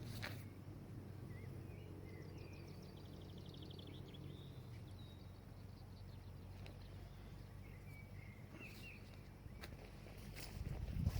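Small birds chirping, with a quick trill, over a steady low rumble; a few sharp clicks, and a thump just before the end.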